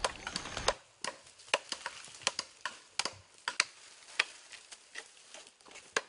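Blades chopping into a palm trunk that is being felled, in irregular sharp strokes, about one or two loud ones a second with lighter knocks between.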